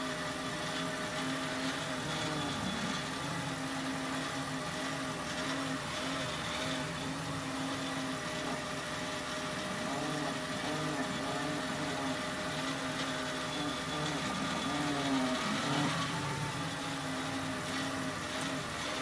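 Audi S5 idling while the steering is turned, with repeated squeaks from the steering that rise and fall in pitch over the steady engine note.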